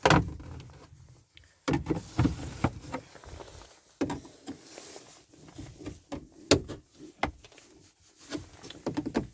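Plastic dashboard trim panel of a 2006 Ford E350 van being pried loose with a flathead screwdriver: irregular clicks, knocks and scrapes of the plastic and its clips.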